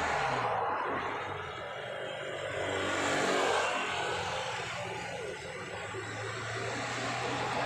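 Cars driving past close by on an asphalt road, one after another: engine and tyre noise swells as each goes by, with the first engine note dropping in pitch as it passes.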